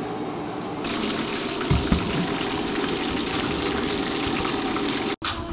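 Breaded kushikatsu skewers deep-frying in a pan of hot oil, a steady dense sizzle with fine crackling that starts about a second in.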